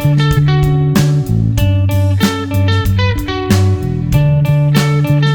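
Background music: guitar-driven track with strummed chords over a steady bass line.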